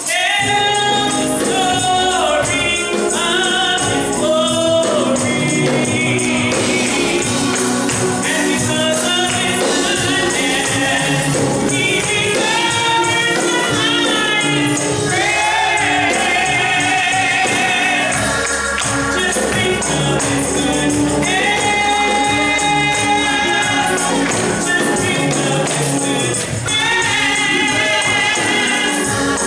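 Gospel choir singing with a live church band of keyboard and drum kit, with bright, busy percussion on top.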